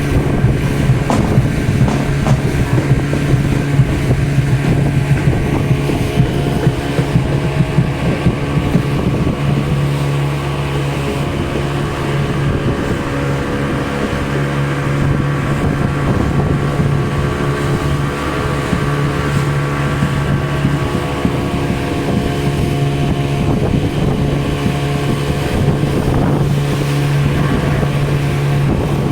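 Small river tour boat's engine running at a steady speed, a constant hum.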